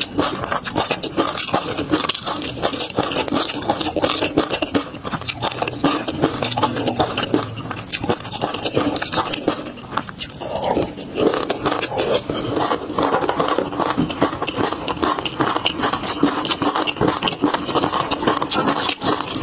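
Close-miked eating sounds of someone eating peanut sauce: a dense, unbroken run of small mouth clicks and smacks.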